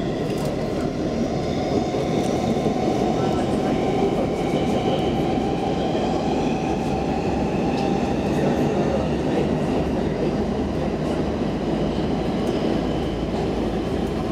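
Stockholm Metro C14 subway car running through a tunnel, heard from inside the car: a steady rumble of wheels on rails that swells a little over the first couple of seconds, with faint high whining tones above it.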